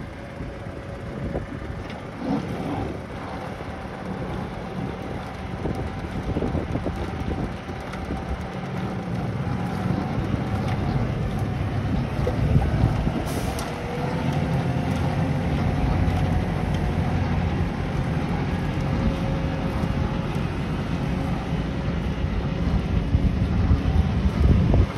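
Tractor diesel engine running steadily as it pulls away with a mounted hay tedder, with wind buffeting the microphone.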